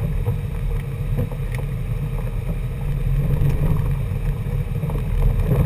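Car driving on a gravel road, heard from inside the cabin: a steady low rumble of engine and tyres that grows a little louder near the end.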